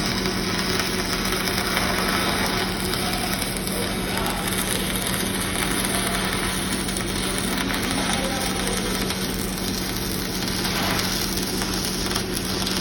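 Stick-welding arc burning a 6011 rod, a steady crackling sizzle, with a constant low hum from the welding machine underneath.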